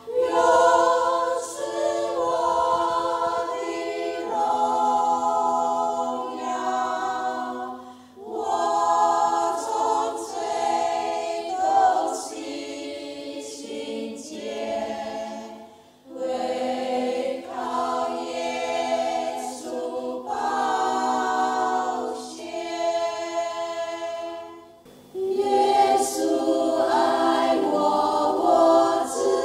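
Women's church choir singing a hymn in Chinese, unaccompanied, in long phrases with three brief breaks for breath.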